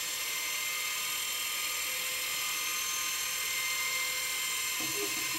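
Lifting column of an IBC mixing station raising the mixer and its impeller shaft out of the container, running with a steady, high-pitched whir and hiss.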